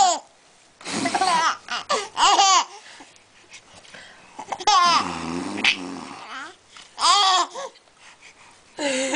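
Baby laughing and babbling in several short bursts, with quieter gaps between them.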